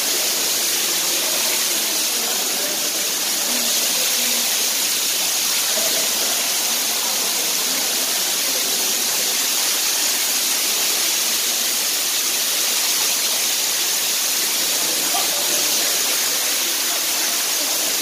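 Underground waterfall inside a cave, its falling water making a steady, unbroken rush.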